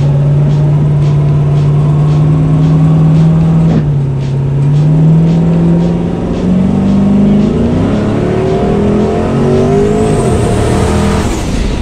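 Turbocharged LS V8 drag car heard from inside the cabin. The engine runs at a steady pitch, then from about four seconds in it accelerates with its pitch climbing. A high whine rises and falls near the end.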